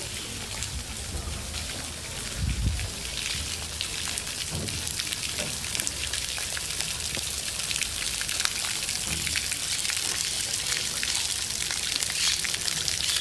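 Small waterfall splashing into a pond: a steady hiss of falling water full of tiny droplet splashes, growing a little louder toward the end. A brief low bump comes about two and a half seconds in.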